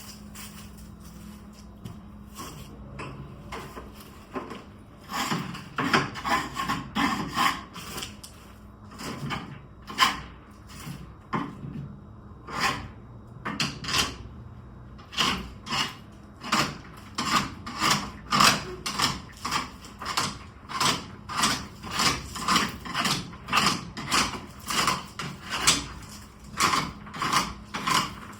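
Repeated hand scraping strokes, about two a second, as caked soybean straw and dirt are cleaned off a combine header. The strokes start sparse and quiet, and become steady and louder after about five seconds.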